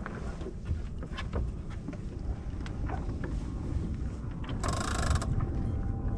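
Sailboat under way: a steady low rumble of wind and water, with scattered small clicks of deck gear and a brief rasping mechanical burst about four and a half seconds in.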